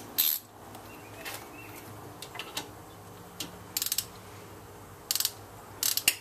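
A 3/8-inch drive ratchet clicking in short rapid runs as a brake bolt is run in snug, after a sharp knock at the start.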